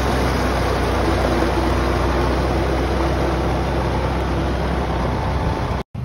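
Tractor engine and a trailed Verhoeven leek harvester working close by: a steady, loud engine drone under dense mechanical noise from the harvester. It cuts off suddenly near the end.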